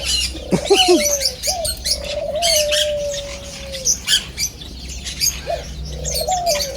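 Many caged small birds chirping and tweeting at once in a dense, constant chatter, with a longer, lower drawn-out call sliding slightly downward in the middle and a shorter one near the end.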